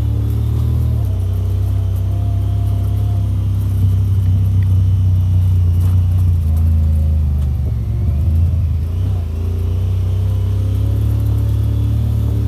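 Off-road vehicle engine running under way on a dirt trail, a loud low drone that shifts in pitch about a second in and again around eight to nine seconds in as the throttle changes.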